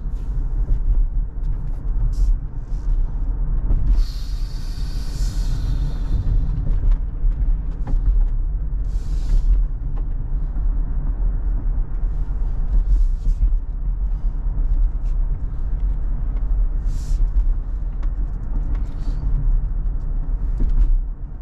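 Road and tyre noise inside a moving electric car's cabin: a steady low rumble. A louder hiss comes in about four seconds in and lasts a few seconds, with a few brief hisses later.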